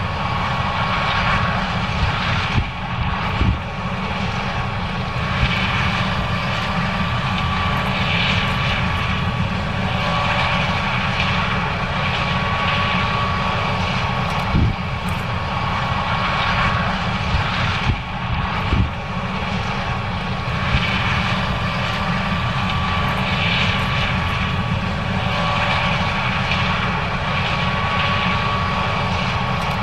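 John Deere S670 combine running while harvesting corn: a steady engine and machinery drone with a constant whine over it, broken by a few short knocks.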